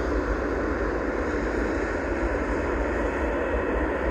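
Steady jet engine noise from a Swiss Air Force F/A-18 Hornet's twin turbofans as the jet moves slowly along the runway, with no rise or fall in level.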